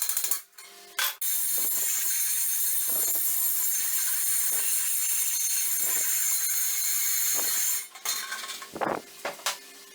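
A steady loud hiss starts abruptly about a second in and cuts off near the eight-second mark. Scattered metallic clinks and knocks come before and after it.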